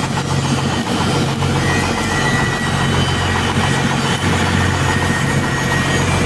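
Heavy engine idling steadily, with an even low hum.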